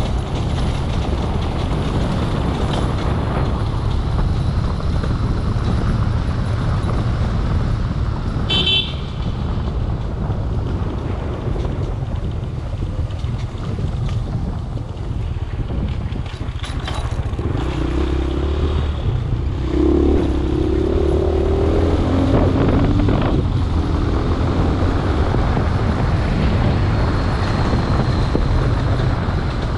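A vehicle's engine running steadily with road rumble while driving a rough dirt road. There is a brief high toot about nine seconds in, and the engine note rises in a few pulls around twenty seconds in.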